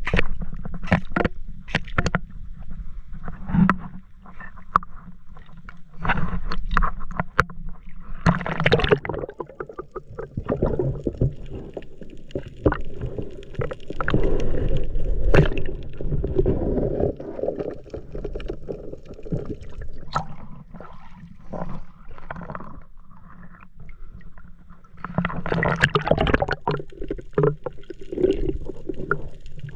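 Water sloshing and gurgling around a camera being dipped into and held under the water, with frequent knocks and clicks from handling. Heavier sloshing comes in spells, about a third of the way in, around the middle and near the end.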